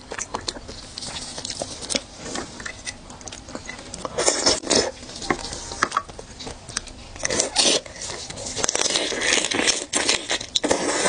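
Close-miked eating of raw seafood: wet chewing, lip smacks and mouth clicks, with a few short, louder noisy bursts.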